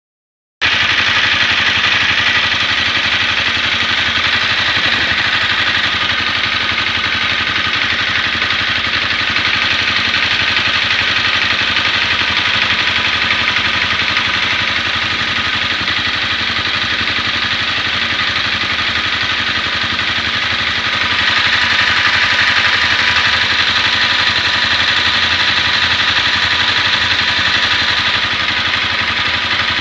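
Honda CBR250R single-cylinder engine idling steadily while hot, a little louder about two-thirds of the way through. It carries a mechanical noise that the owner suspects comes from the valve shims or the cam chain tensioner.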